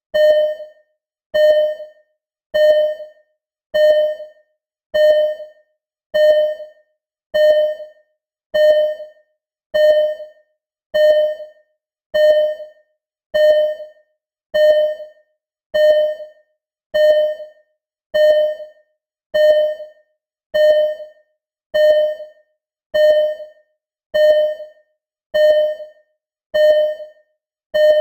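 Simulated hospital ECG heart monitor beeping: a short electronic tone that fades quickly, repeating steadily about every 1.2 seconds, one beep per heartbeat in a regular rhythm.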